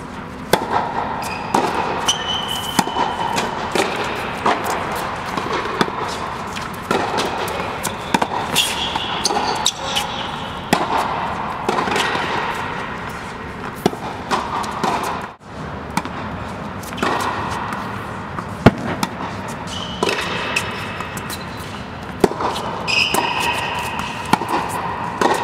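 Tennis balls struck back and forth with racquets in a volley rally on an indoor court: a string of sharp pops and ball bounces, about one a second, with short high squeaks now and then.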